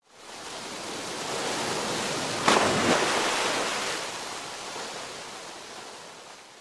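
Whooshing rush of noise, like surf, that swells in, peaks with a sharp hit about two and a half seconds in, then slowly fades away: a sound effect for an animated logo reveal.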